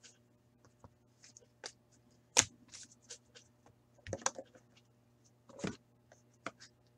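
Trading cards and card boxes being handled on a tabletop: scattered light clicks and taps, one sharp tap a couple of seconds in, and short rustling scrapes later on, over a faint steady hum.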